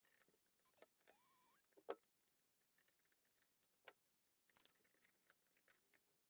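Near silence, broken by a faint short squeak about a second in and a few light clicks and taps as hands handle the mobility scooter's tiller mechanism, with a cluster of small clicks near the end.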